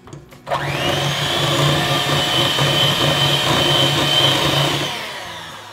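Electric hand mixer running, its beaters whirring through thick waffle batter. It spins up with a rising whine about half a second in, runs steady, and winds down near the end.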